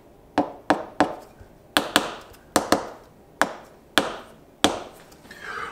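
A series of about ten sharp knocks at an uneven pace, each fading quickly, from a tool rapping on a sand-casting mould and pattern.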